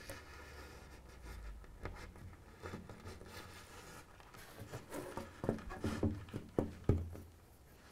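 Quiet handling sounds as wires are pulled through a baseboard and a model railway point (turnout) is laid and shifted on the board: light rustling, then several soft taps and clicks in the second half.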